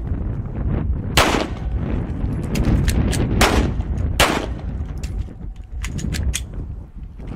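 Semi-automatic handguns fired in single shots: three sharp reports about a second in, at about three and a half seconds and just after four seconds. Fainter metallic clicks near the end come from an empty-gun magazine reload.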